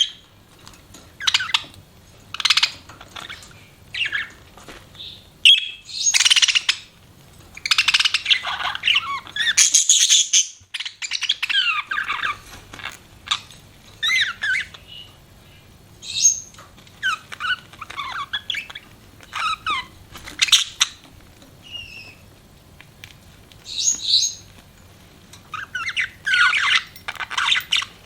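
Pet budgerigars chirping and warbling in short bursts of rapid, gliding calls, with brief pauses between them.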